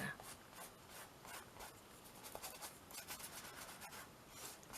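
Faint, irregular rubbing and scratching of a paintbrush stroking matte medium over collage paper on a canvas, sealing it down.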